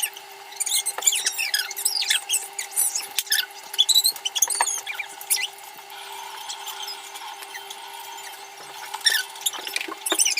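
Close-up eating noises from shelling and eating crab and prawns: scattered clicks and crackles with short, high squeaks, over a steady low hum.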